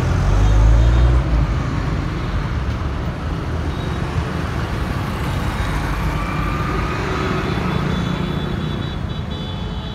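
Road traffic passing close by: a Mahindra Bolero Maxitruck pickup's engine and tyres rumble loudest in the first second or so as it pulls past. Motorcycles then go by and the sound settles into a steady traffic hum that eases off slightly near the end.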